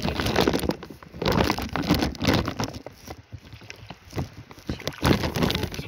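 Wading through a shallow river: irregular splashing and sloshing of water, heard muffled through a plastic bag over the phone's microphone, with the bag rubbing and scraping against it.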